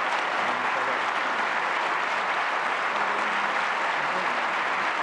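A large theatre audience applauding, a dense, steady clatter of many hands clapping that neither builds nor fades.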